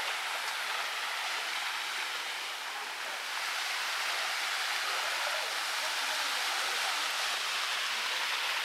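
Steady rush of running floodwater, growing a little louder about three seconds in.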